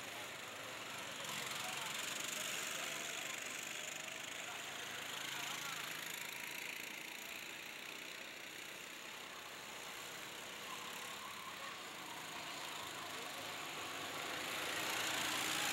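Several go-kart engines running as a pack of karts goes round the track, their note rising and falling as they pass, over a steady hiss. The loudness swells a few times and grows near the end.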